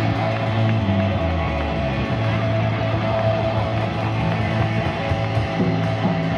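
Live rock band playing electric guitars over bass and a drum kit.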